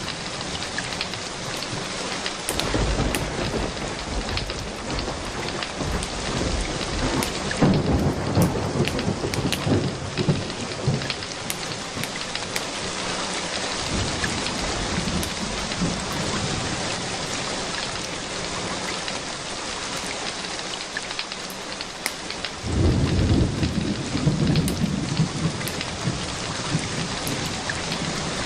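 Steady rain with rolling thunder: deep rumbles swell up three times, the strongest about 8 seconds in and again about 23 seconds in.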